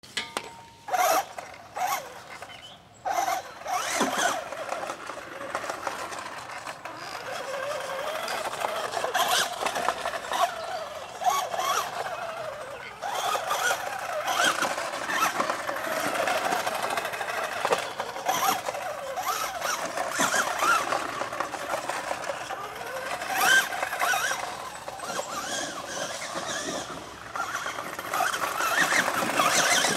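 Tamiya Midnight Pumpkin electric RC monster truck driving over dirt and weeds: the whine of its brushed electric motor and gearbox, rising and falling in pitch as the throttle comes on and off. There are a few sharp knocks in the first few seconds.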